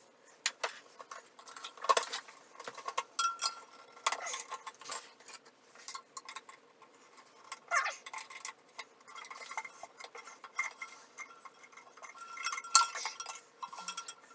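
Metal hand tools clinking, knocking and scraping against rusted toilet tank bolts and nuts as they are worked loose: irregular clicks with short metallic rings.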